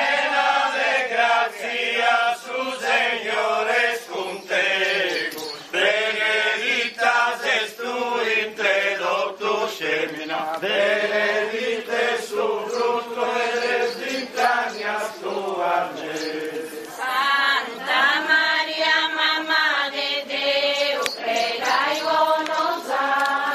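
A group of voices singing a religious chant together, in sung phrases with short breaks between them.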